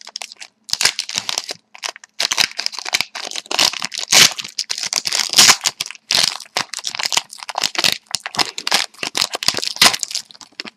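Plastic wrapper of a hockey card pack being torn and crinkled by hand: a dense run of irregular crackles with a few short pauses, from a pack that is proving difficult to open.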